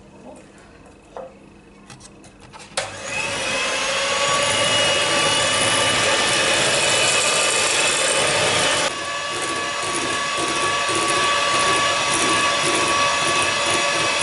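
Electric hand mixer switching on about three seconds in and running steadily with its beaters in a glass bowl of brownie batter, after a few quiet seconds with light knocks. About nine seconds in its whir drops slightly and stays lower.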